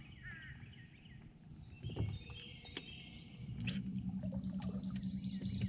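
Outdoor ambience with birds calling: short chirps early on and a quick run of about six high repeated notes near the end. A steady low hum sets in a little past halfway and keeps going.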